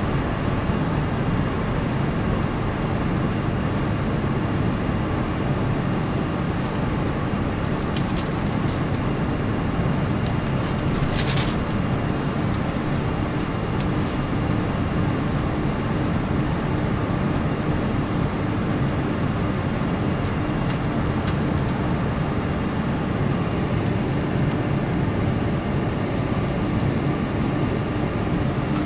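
Boeing 747-400's Pratt & Whitney PW4056 turbofans running at taxi power, heard inside the upper-deck cabin as a steady engine noise with a low steady hum.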